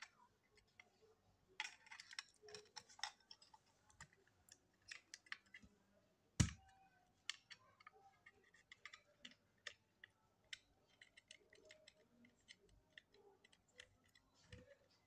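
Small clicks and taps of plastic and metal parts as an opened cordless hair trimmer is handled and its circuit board fitted back into the plastic housing, with one louder knock about six seconds in.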